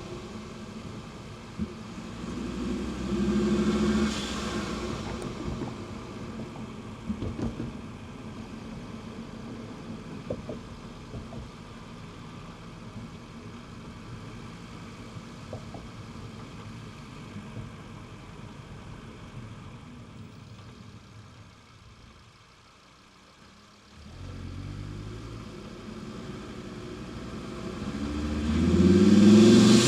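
Audi TT RS's turbocharged five-cylinder engine running mostly quietly, with a short swell of revs about three seconds in. It drops almost away around twenty-two seconds in, then picks up and revs hard with rising pitch near the end.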